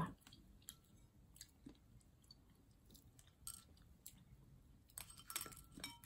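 Faint chewing of fried, breaded chicken skin, with scattered small crunches and clicks that grow busier near the end.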